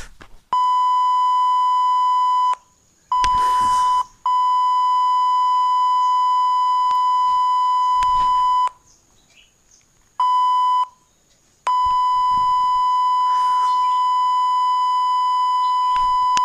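Steady high-pitched censor bleep tone. It sounds in five long stretches separated by short gaps: the longest lasts about four seconds and the shortest under a second.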